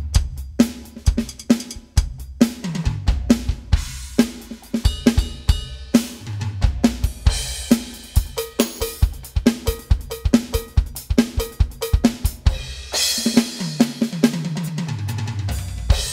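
Roland TD-30 electronic drum kit played in a busy groove: kick, snare, hi-hat and cymbal sounds from the module, on a custom kit that has extra sounds such as cowbell, tambourine and stack cymbal assigned to head and rim zones. Tom fills run down in pitch about three seconds in and again near the end, where crash cymbals ring out.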